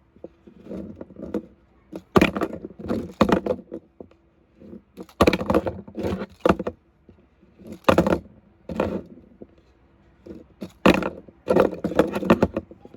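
Toy monster trucks clattering, knocking and scraping as they are run, flipped and land, in several separate bursts of sharp impacts.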